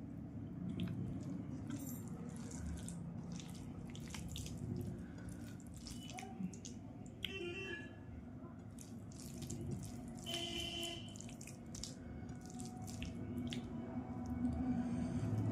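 Close-up wet eating sounds: rice and fish curry being mixed and eaten, with irregular small squelches and clicks over a low steady background hum.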